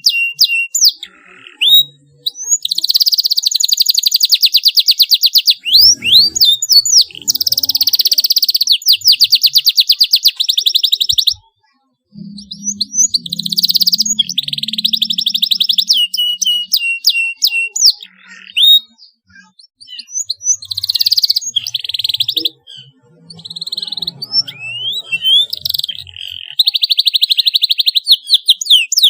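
Domestic canary singing: bursts of rapid, high trills a few seconds long alternate with quick sweeping chirps and short pauses. This is the 'cuit cuit' song used as a lure to stimulate young canaries learning to sing.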